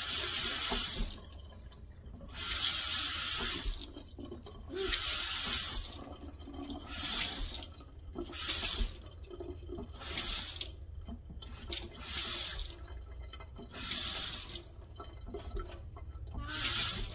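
Delta kitchen faucet with a newly fitted cartridge: water runs into the sink in short spurts as the handle is turned on and off over and over, about eight times, each run a second or so. The faucet is being tested to see whether it still drips after shut-off.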